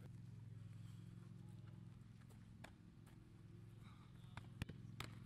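Near silence over a low steady hum, broken by a few scattered sharp taps from a goalkeeper's quick sideways steps on grass; the loudest tap comes about four and a half seconds in.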